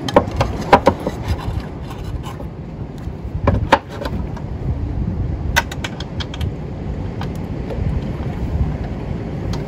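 Steady low rumble of the boat underway with wind on the microphone, broken by scattered sharp clicks and knocks as surf fins are pushed into the fin boxes of a twin-fin surfboard, the loudest in the first second and a little under four seconds in.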